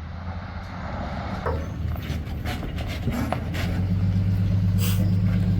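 A motor vehicle's engine running steadily with a low hum, growing louder over the last couple of seconds and stopping abruptly at the end, with a few light knocks and clicks.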